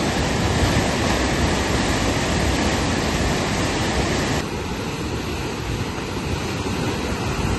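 Floodwater rushing in a steady, loud torrent, its sound changing abruptly about four and a half seconds in.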